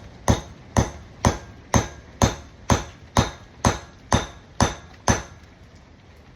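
Hammer striking steel wheel studs to drive and seat them in a dually's wheel hub, with about two sharp metallic blows a second. There are eleven blows in all, and they stop about five seconds in.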